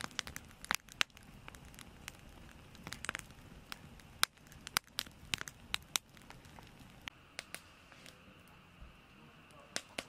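Split firewood logs burning in a fire pit, crackling with irregular sharp pops.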